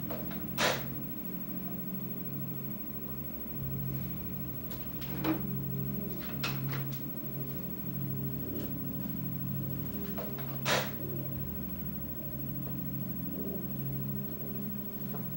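A low, steady hum under four sharp knocks and clicks of kitchen handling, like things being taken from an open refrigerator and set down.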